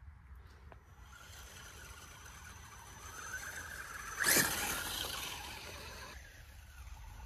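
Electric radio-controlled scale truck driving over snow-covered grass and leaves: a steady high motor whine with tyre and ground noise that builds, peaks loudly a little after four seconds in, then falls away.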